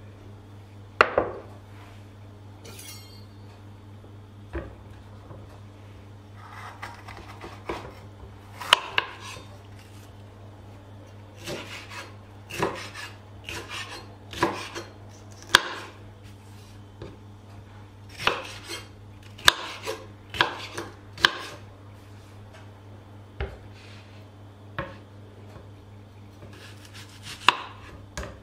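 A kitchen knife cutting a red bell pepper and then an onion on a wooden cutting board. Each cut ends in a sharp knock of the blade on the board, at an irregular pace of about one every second or two, sometimes in quick pairs. A low steady hum runs underneath.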